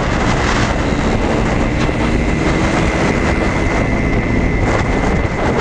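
Vespa scooter riding at road speed: steady wind rush on the microphone over the running engine, with a faint steady high tone.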